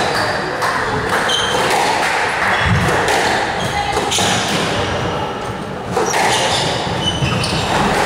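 Squash rally: the ball cracking off rackets and the walls again and again, with short high squeaks from the players' shoes on the wooden court floor.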